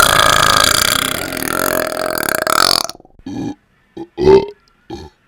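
A long, loud, drawn-out burp that wavers in pitch and cuts off about three seconds in, followed by several short burps in quick succession.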